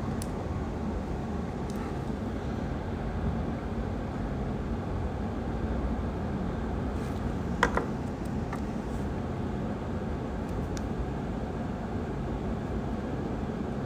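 Steady low background hum with one short click about eight seconds in.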